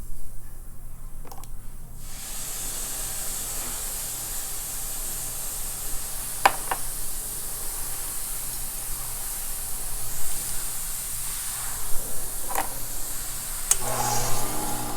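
Gemstone held by hand against the spinning lap of a faceting machine, polishing the table facet: a steady hiss starts about two seconds in, with a few sharp clicks. Near the end, a motor hum with a steady tone rises.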